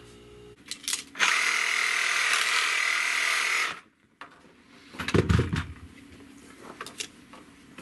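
Cordless reciprocating saw running for about two and a half seconds, then cutting off abruptly. A few knocks and clicks of handling follow.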